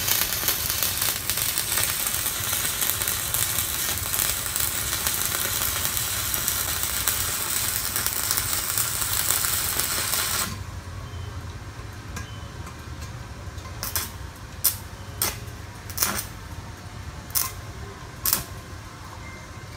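Stick (MMA) arc welding with a Kenmax ARC 200 inverter welder on a 3.2 mm electrode: the arc's steady crackling hiss runs for about ten seconds and then stops abruptly as the rod is pulled away. A few seconds later there are about six sharp metallic taps.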